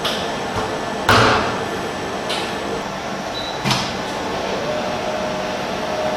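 Steady machine hum of a large industrial washer with a loud clunk about a second in and a lighter knock a few seconds later, the sound of its door or loading gear being worked.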